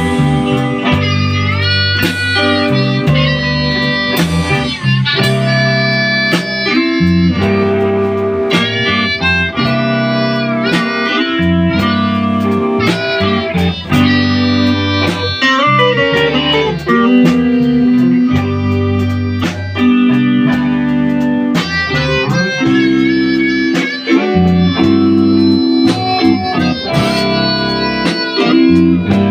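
Live blues band jamming in a small rehearsal room: electric guitar, bass guitar and drum kit, with a harmonica cupped against a hand-held microphone and played amplified.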